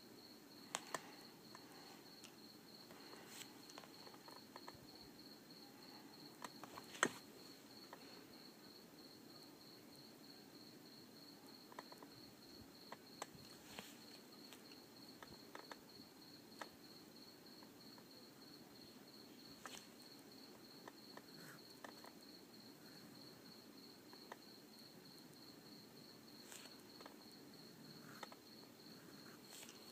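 Faint, steady high trill of an insect, evenly pulsed throughout, with scattered light clicks and taps; the sharpest click comes about seven seconds in.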